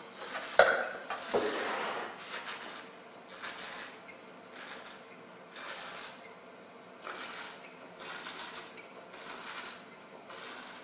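A person taking a sip of red wine, then slurping, drawing air through the wine in the mouth to taste it: a series of short hissing slurps, about one a second.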